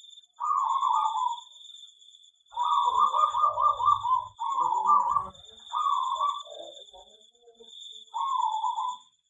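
Zebra doves (perkutut) cooing: short phrases of quick, rolling notes repeated about five times, with several calls overlapping in the middle. A steady high-pitched hum runs underneath.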